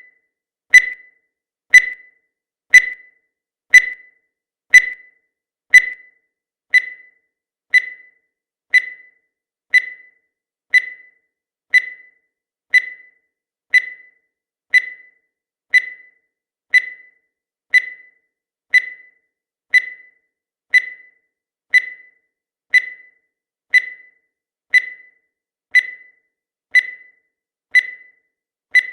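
Countdown timer sound effect: a short, high electronic beep once a second, each one fading quickly, in a steady even rhythm.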